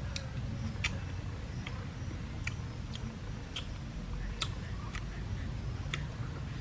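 Irregular sharp clicks and crunches, about one or two a second, of cooked shrimp shells being peeled by hand and chewed, over a steady low background rumble.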